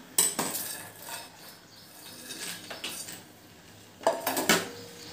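Steel slotted spoon stirring soaked soya chunks in hot water in a stainless steel pot, scraping and clinking against the pot. Several louder clanks come about four seconds in, followed by a short metallic ring.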